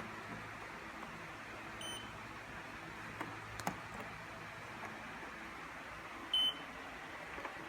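Washing machine control panel beeping: a faint short beep about two seconds in and a louder short beep near the end, with a couple of light clicks in between.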